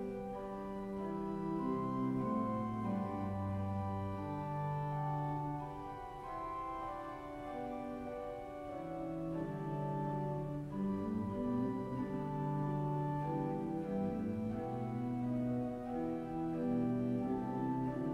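Organ music playing slow, held chords over a bass line that steps from note to note.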